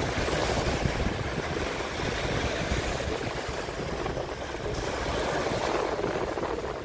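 Small Baltic Sea waves breaking and washing up onto a sandy beach, a steady surging wash that swells and eases.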